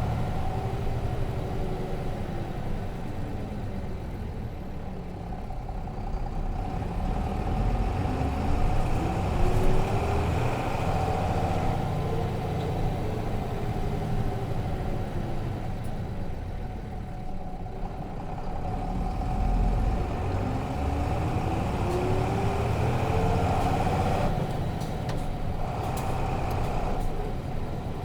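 Nissan Diesel RM bus's FE6 inline-six diesel engine running under way, heard on board, its pitch rising and falling several times as the bus speeds up and slows, over a low road rumble.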